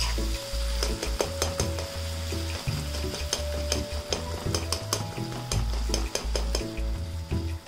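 A metal spoon stirring chopped tomatoes and onions in an aluminium kadhai, scraping and clicking against the pan many times while the vegetables sizzle steadily in hot oil.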